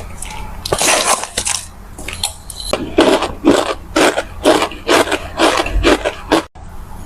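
Chunks of starch granules being crunched in a series of crisp, crackly crunches. From about three seconds in they come steadily, about two a second, with a brief gap near the end.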